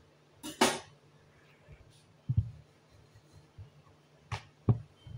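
Rolling pin and wooden rolling board knocking on the counter as paratha dough is rolled out: a sharp clatter about half a second in, then a few dull thumps.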